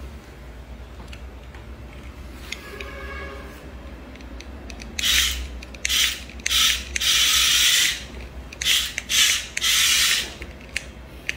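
A series of about seven harsh scraping strokes of uneven length, starting about five seconds in, over a low steady hum.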